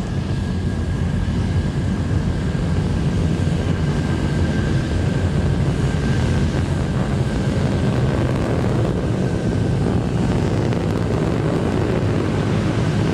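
Relativity Space's Terran 1 rocket climbing under the thrust of its nine methane-fuelled Aeon 1 first-stage engines: a steady, loud, deep rumble with a faint high tone running through it.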